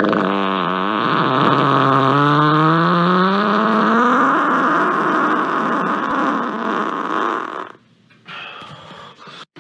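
A long, drawn-out fart with a wavering, sliding pitch that cuts off sharply about eight seconds in, followed by a brief, quieter sound.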